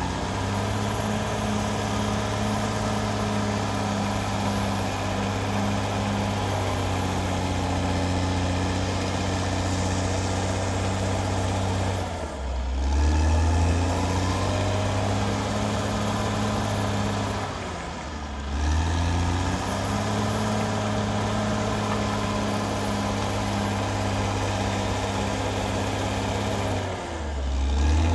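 Caterpillar D6R XL bulldozer's diesel engine running steadily. Its note briefly drops low and then comes back up three times, about twelve, eighteen and twenty-seven seconds in.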